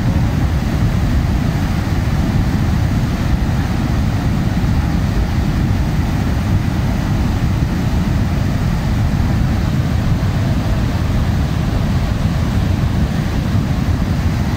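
Volcanic mudflow (lahar) of mud and rock rushing down the river channel, a loud, steady low rumble without a break.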